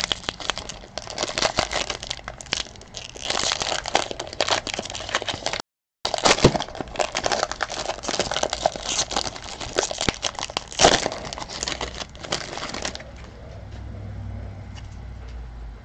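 Foil trading-card pack wrapper crinkling and tearing as it is pulled open by hand, a dense run of crackles with a brief gap in the sound a little before halfway. It stops about 13 s in, leaving only a faint low background.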